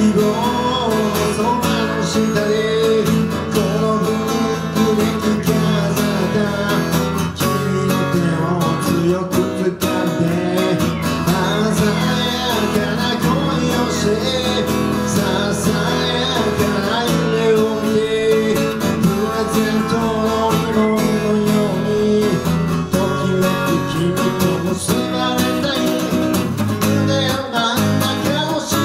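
Acoustic guitar strummed in a steady rhythm, playing a song's instrumental passage between sung verses.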